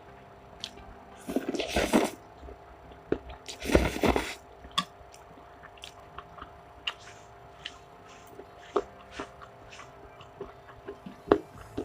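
Close-miked eating of spicy instant noodles: two loud slurps about two seconds apart, followed by soft chewing and small wet mouth clicks.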